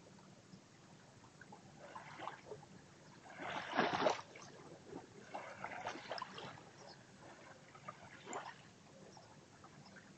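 Small waves lapping on a sandy shore, washing in about four times; the loudest wash comes about four seconds in.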